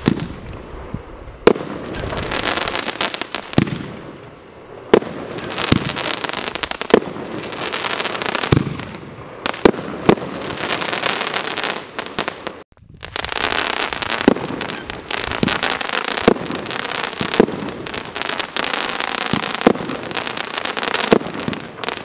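Fireworks going off: a constant dense crackle with sharp bangs every second or two. The sound drops out for a split second about halfway through.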